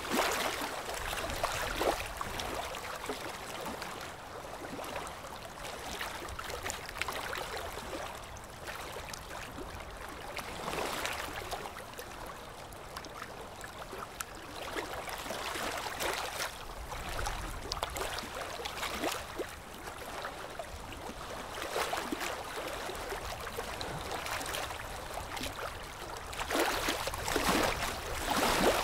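Ultrasonic dental scaler working along tartar-crusted lower front teeth: a water-spray hiss with wet gurgling, rising and falling in waves as the tip moves, during removal of heavy tartar (calculus).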